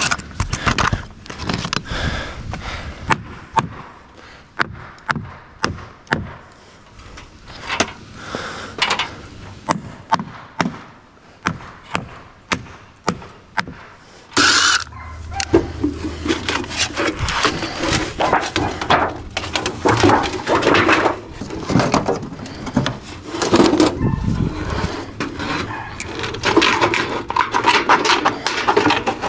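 Milwaukee cordless nail gun firing nails into a wooden fascia board, one sharp shot every second or so. Partway through, the shots give way to continuous scraping and crinkling as a sheet of galvanized metal flashing is handled and cut with tin snips.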